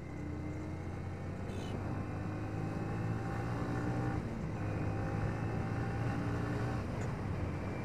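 Yamaha Vixion R's 155 cc single-cylinder engine pulling under acceleration on the move, its note rising, breaking briefly about four seconds in at a gear change, then rising again, over wind rush.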